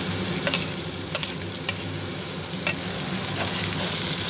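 Tomato wedges sizzling in hot oil with fried onions and garlic in a kadai, stirred with a spatula that clicks and scrapes against the pan a few times in the first few seconds.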